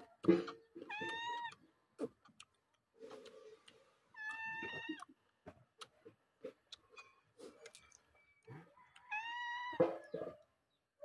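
A cat meowing three times, each call a steady tone that drops at the end. Between and under the calls are short clicks and smacks of someone eating by hand.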